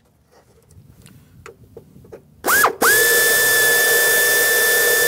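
Pneumatic air drill drilling a hole in the aluminium skin of a Cessna 172 door. The trigger is blipped about halfway in, then the drill runs at a steady high whine with air hiss for about three seconds and dips slightly just before it stops. Light handling clicks come before it.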